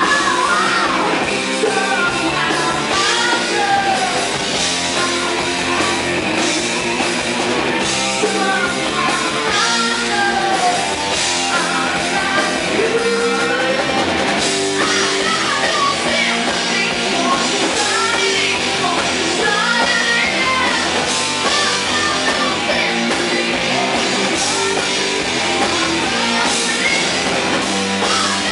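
Live rock band playing loud and steady: a woman singing lead into a microphone over electric guitar and drum kit.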